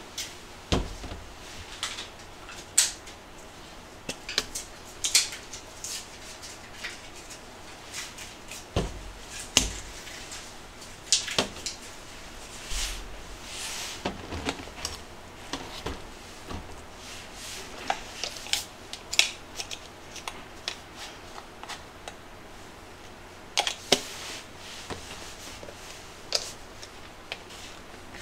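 Irregular clicks and knocks of bottles, caps and small spice containers being handled, opened and set down on a stainless steel kitchen counter while chicken pieces are seasoned.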